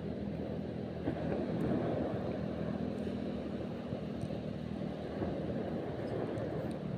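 A boat's engine running steadily: a low hum over a rumbling background.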